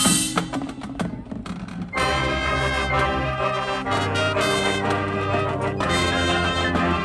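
Marching band playing: a loud brass chord breaks off, a sparser passage with light percussion ticks follows, and the full brass section comes back in about two seconds in with sustained chords.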